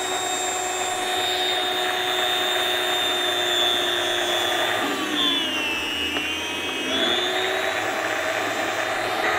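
Meat Your Maker electric meat slicer running with a steady motor whine as beef is sliced thin. Its pitch sags and recovers about halfway through and again at the end.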